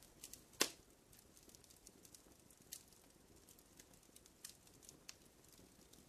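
Faint campfire crackling: scattered small pops and snaps, with one sharper pop about half a second in.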